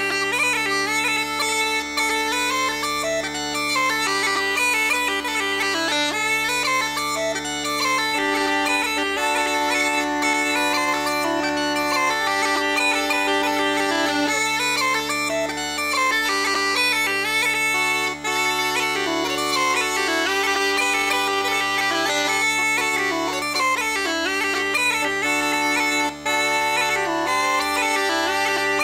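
Uilleann pipes playing a jig: a quick chanter melody over steady, sustained drones.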